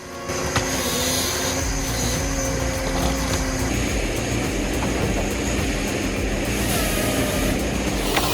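Rottne H21D forestry harvester's diesel engine running steadily, its note dropping to a lower pitch about a third of the way in.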